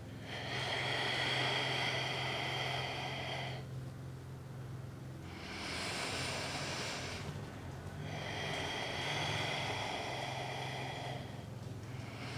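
A woman breathing slowly and audibly through a held yoga squat: three long, deep breaths of two to three seconds each, with a steady low hum underneath.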